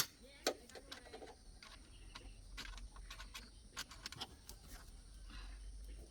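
Scattered light clicks and taps of handling during car repair, one sharper knock about half a second in, over a faint low hum that builds slightly toward the end.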